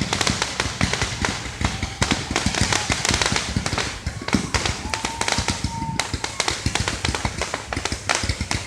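Fireworks going off in a rapid barrage, many sharp pops and crackles in quick succession.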